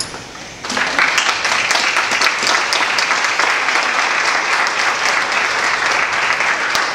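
Audience applauding, the clapping setting in suddenly less than a second in and carrying on steadily.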